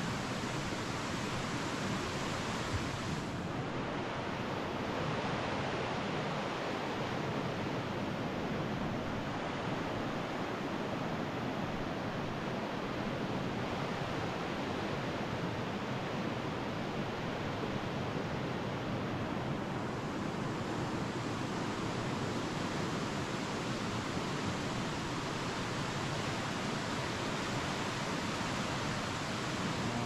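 Waterfall water rushing: a steady, even noise that does not let up.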